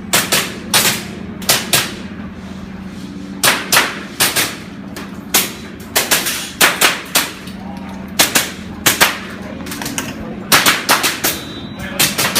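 Airsoft gun shots fired by a competition shooter in quick pairs and short strings, with brief pauses between groups.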